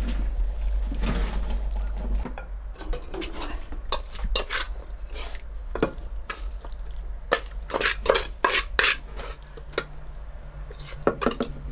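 Wooden chopsticks and a wooden rice paddle knocking and scraping against a cooking pan and a rice cooker's inner pot, in a run of sharp clicks, as simmered maitake mushrooms are pushed out of the pan onto cooked rice. A faint low hum comes in about halfway through.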